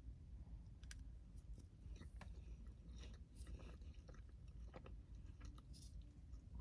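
Faint, close-up chewing of animal-style fries, with scattered soft mouth clicks.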